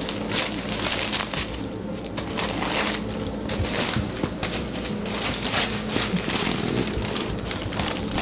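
A puppy rummaging in torn wrapping paper: a continuous run of irregular crinkling, rustling and ripping.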